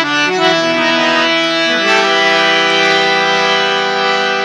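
Harmonium accompanying a devotional bhajan: a quick run of notes that settles about half a second in into a chord held steady for the rest.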